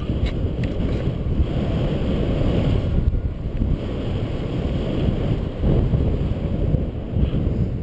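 Wind rushing over the camera microphone of a paraglider in flight: a steady, gusty low rumble of airflow buffeting.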